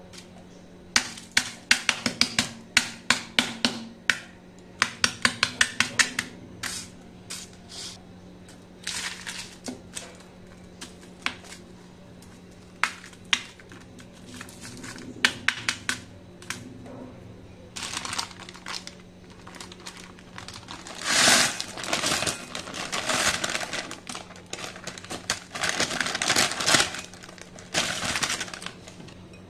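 Honeycomb toffee being cracked into pieces with a metal pestle on parchment paper: runs of sharp taps, several a second, for about the first dozen seconds, then scattered taps. In the last third comes crinkling of parchment paper and the crunchy candy pieces sliding as they are tipped into a glass bowl.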